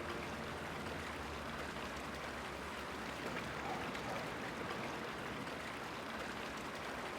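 Steady, even background hiss of ambient noise, with no music and no one speaking.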